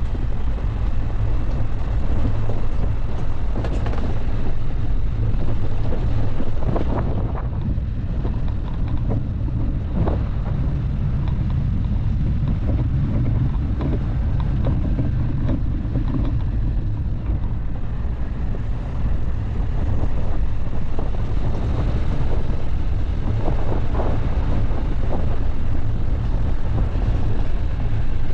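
Dacia Duster driving off-road: a steady low engine and rolling rumble, with a few short knocks and rattles scattered through it.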